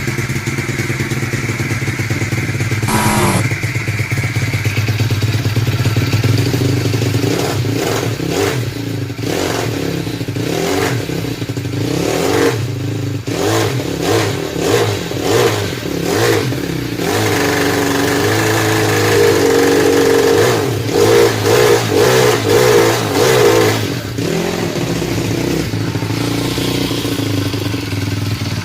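Small pit-bike engine running and being revved in repeated surges, rising and falling in pitch, with a brief high whine about three seconds in.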